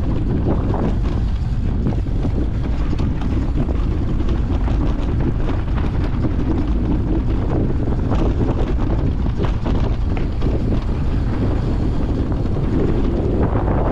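Wind buffeting the microphone of a handlebar-mounted camera on a mountain bike riding down a dirt forest singletrack, over a steady low rumble of knobby tyres on the trail and frequent small knocks and rattles from the bike over the bumps.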